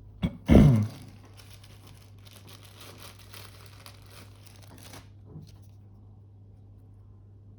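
Fine crackly scratching and rubbing on a thin plastic flex cable as sticky glue is scrubbed off it with lighter gasoline, lasting about four seconds and then stopping. A brief loud sound that falls in pitch comes just before it, and a low electrical hum runs underneath.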